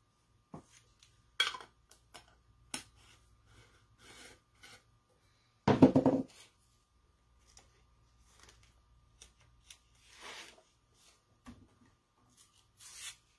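Scattered light clicks, taps and rustles of craft supplies being handled on a work mat, with one brief louder sound about six seconds in.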